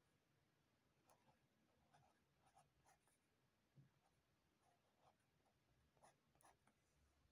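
Faint scratching of a felt-tip CD marker writing letters on paper, in short separate strokes about once or twice a second.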